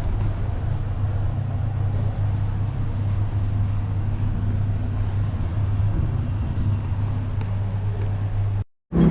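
Steady low mechanical hum over an even rumble, breaking off abruptly near the end.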